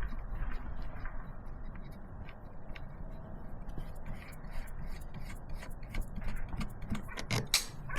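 Small irregular metal clicks and scraping as a nylon-insert locking nut is worked along a length of threaded rod, stiff on the thread, with a few louder knocks near the end.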